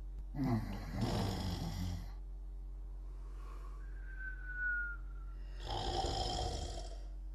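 Snoring during sleep: two snores about five seconds apart, with a thin high whistle falling slightly in pitch between them, over a steady low hum.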